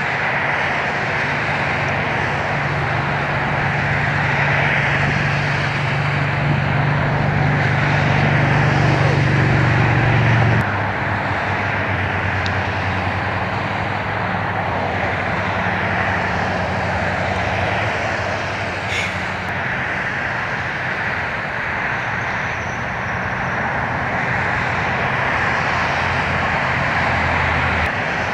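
A steady engine-like drone: a low hum over a constant rushing noise, the hum dropping lower and quieter about ten seconds in.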